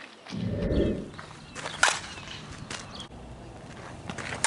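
Sharp smacks of a softball meeting a leather glove during fielding play, a few separate strikes with the loudest near two seconds in, and a brief low rumble about half a second in.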